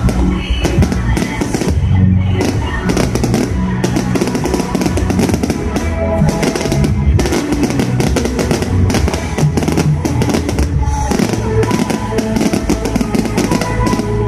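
Fireworks bursting and crackling in rapid, dense bangs, heard together with music that has held bass notes and drums.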